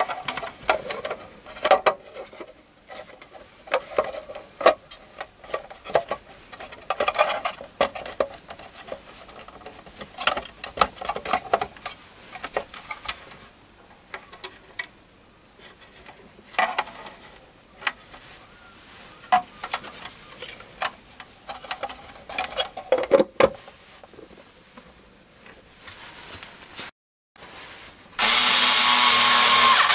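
Plastic junction box and metal power-supply unit handled and pressed into place: irregular knocks, clicks and rattles of plastic and metal. About 28 seconds in, a cordless screwdriver starts, running loud and steady as it drives in the box lid screws.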